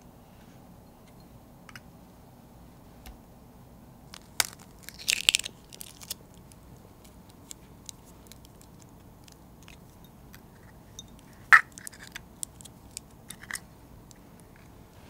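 Eggs being cracked and separated by hand: sharp cracks and crackles of eggshell, a cluster about five seconds in and one sharp crack about eleven and a half seconds in, with small clicks of the shell halves in between.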